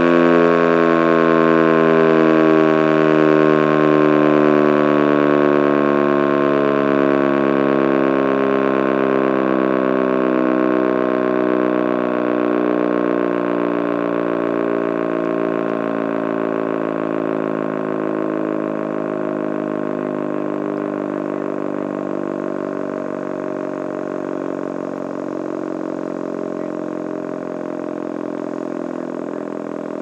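ACA Banshee 115 electromechanical warning siren winding down: its chord of tones slides slowly and steadily lower in pitch and gradually fades as the rotor coasts to a stop after being switched off.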